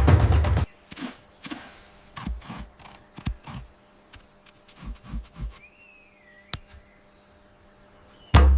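Drum music cuts off under a second in. A quiet stretch follows of scattered small clicks, snaps and soft low knocks, with one short wavering whistle about six seconds in. Drum music comes back in just before the end.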